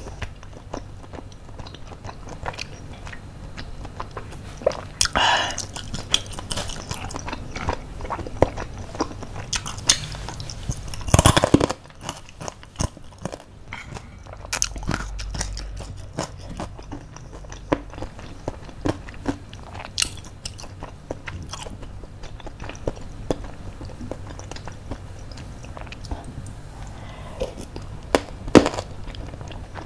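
Eating sounds of baso aci tapioca meatballs and crispy basreng: chewing, biting and crunching with many small clicks and crackles. One louder noisy burst comes about eleven seconds in.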